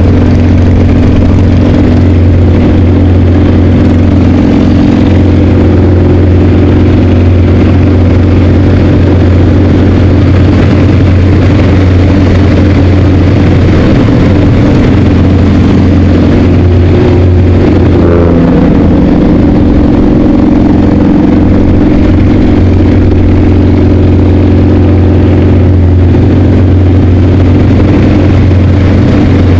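Yak-50's nine-cylinder Vedeneyev M-14P radial engine and propeller running, heard from inside the open-air cockpit as a loud, steady drone. The engine note dips briefly and comes back up about 18 seconds in.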